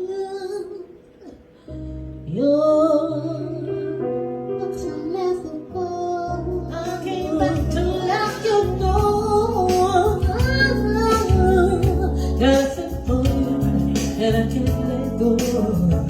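A woman singing a slow, ornamented melody over a backing track. The accompaniment fills out with bass and a beat about seven seconds in.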